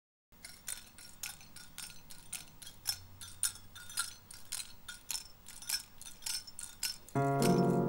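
A drummer taps out a steady rhythm of light metallic strokes on the kit, likely the cymbals, opening the song. About seven seconds in, the keyboard and bass come in with loud held chords.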